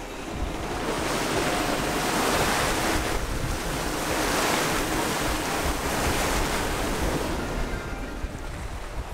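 Water rushing and splashing along the hull of a sailing yacht under way, with wind on the microphone. The rush swells about a second in and eases off near the end.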